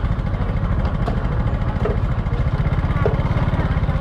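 Small motorbike engine running at low speed, a steady low putter, with faint market clatter and voices behind it.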